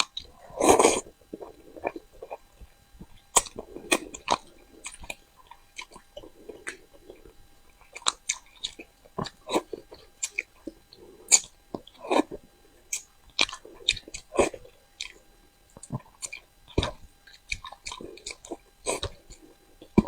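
Close-up chewing and mouth sounds of someone eating fish: irregular wet smacks and sharp clicks, with a louder burst just under a second in.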